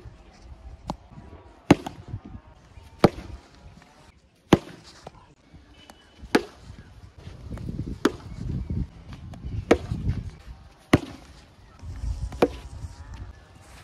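CEAT plastic cricket bat striking a hard tennis ball, shot after shot: about eight sharp cracks, roughly one every second and a half.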